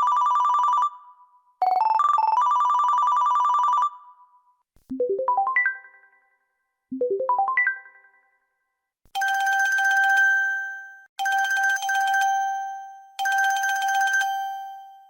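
Built-in polyphonic ringtones of an LG-SV400 Cyon mobile phone (Qualcomm CMX 72-voice synth) playing one after another: a fast trilling ring pattern that ends about four seconds in, then a quick rising four-note run twice, then a buzzy ring repeating about every two seconds from about nine seconds in.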